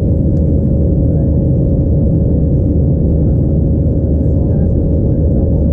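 Cabin noise inside an Airbus A321-211 in flight: its CFM56 jet engines and the rushing airflow make a steady, loud, low drone, with a steady hum held over it.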